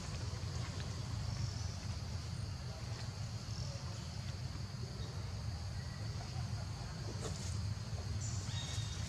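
Steady outdoor background noise: a low rumble under a high hiss, with a few faint short high chirps near the end.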